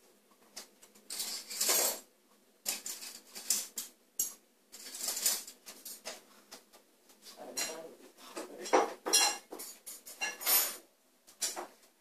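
Dishes and metal cutlery being handled off-camera: irregular clinks, knocks and scraping sounds.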